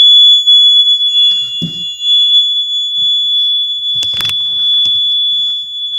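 Small electronic alarm buzzer rated at 95 decibels, running on a 12-volt supply and sounding one continuous, very loud high-pitched tone. It drops slightly in level after the first half second, with a couple of faint knocks about two and four seconds in.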